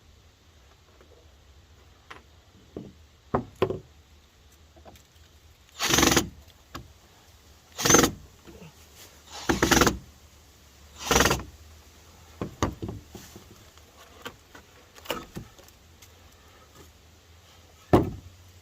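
Hand work on old wooden deck boards: several short, loud scrapes and knocks of about half a second each, with fainter clicks and taps between them.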